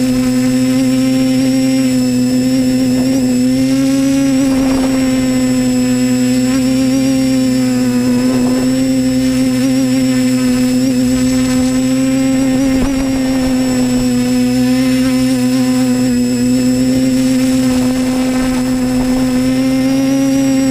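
Quadcopter's electric motors and propellers humming steadily in flight, heard close up from on board, one strong low tone with overtones whose pitch wavers slightly.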